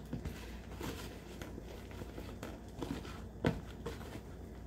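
Faint squishing and rustling of a hand working glue and shaving cream together in a bowl, with one louder knock about three and a half seconds in.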